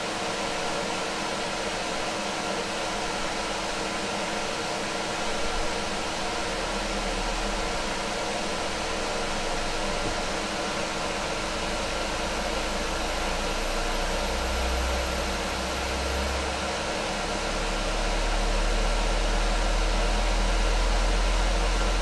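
Dometic RTX 2000 rooftop air conditioner running, heard from inside the van directly beneath it: a steady rush of blowing air with several steady hum tones. A low hum swells twice and then grows louder about three-quarters of the way through, which fits the compressor starting to go as the unit moves into its cooling stage.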